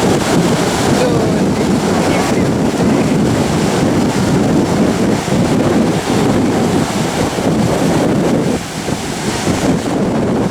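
Wind buffeting the microphone over the sound of ocean surf, a loud, steady rush that eases slightly about eight and a half seconds in.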